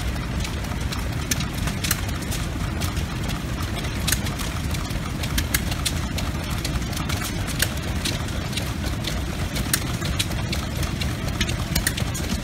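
Antique stationary engines running at a machinery display: a steady low rumble with many irregular sharp clicks and knocks over it.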